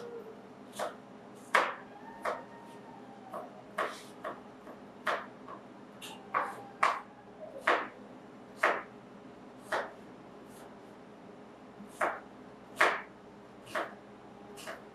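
Kitchen knife cutting small onions on a cutting board, the blade knocking down on the board about once a second in an uneven rhythm as the onions are diced.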